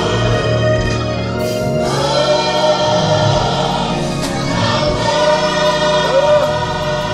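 Gospel choir singing a worship song, with long held notes.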